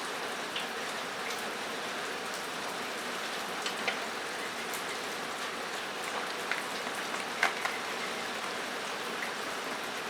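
Steady hiss of rain falling on a metal roof, with a few short, sharp clicks scattered through it.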